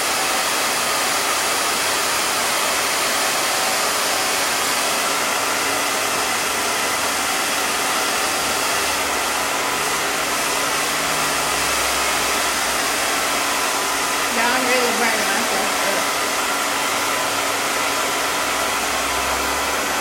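Handheld hair dryer blowing steadily on the wig's lace to dry it, with a faint voice briefly heard about two-thirds of the way through.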